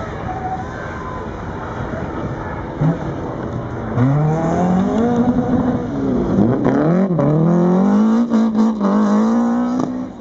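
Rally car engine at full throttle, revving up through the gears. The pitch climbs and drops back with each change from about four seconds in, then is held at high revs near the end.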